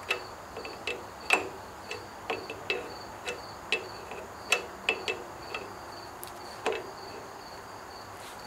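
Wrench clicking against a hydraulic hose fitting as it is tightened on a backhoe's bucket curl cylinder: a string of sharp, irregular metal clicks that stop about seven seconds in.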